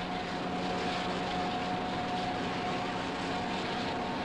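High-pressure water hose spraying oil-bound road dirt off a bus body: a steady hiss of the jet with a steady hum underneath.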